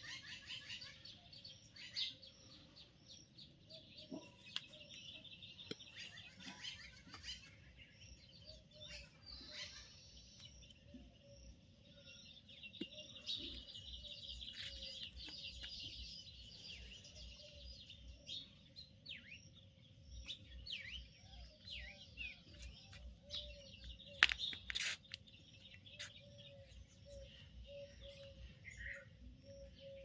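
Several birds chirping and calling together in a morning chorus of short high chirps, with a long fast trill a little before the middle. A single sharp click comes about four-fifths of the way through.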